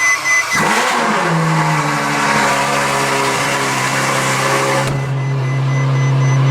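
Ferrari F12's V12 with a straight-piped exhaust cold-starting in a garage. A repeated beeping stops as the engine catches about half a second in, flares up briefly, then settles into a loud, steady high idle.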